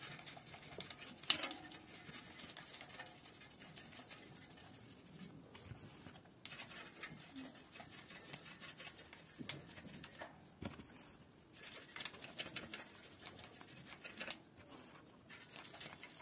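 A toothbrush scrubbing dust off a bicycle wheel hub: a faint, dry scratching of bristles, with a sharp click about a second in and a few short pauses.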